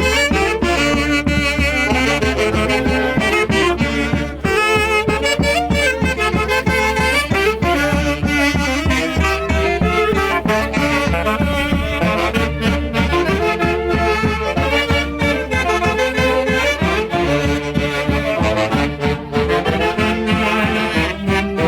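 Orquesta típica of saxophones and other wind instruments playing a Santiago dance tune, the melody carried over a steady, evenly pulsing bass beat.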